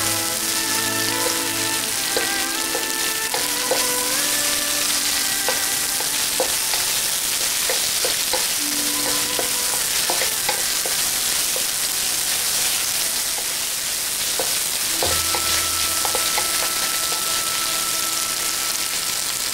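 Onions and carrots sizzling in hot oil in a wok while a wooden spatula stirs them constantly, scraping and tapping against the metal.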